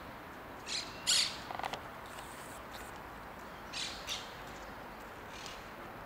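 Monk parakeets and black-headed gulls giving short, harsh squawks, a handful of calls scattered through, the loudest about a second in.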